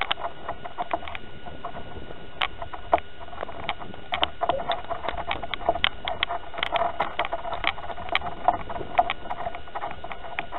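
Handling noise picked up by a small camera mounted on a model rocket's body tube: irregular light clicks and knocks, closer together in the middle, over a faint steady high electronic whine.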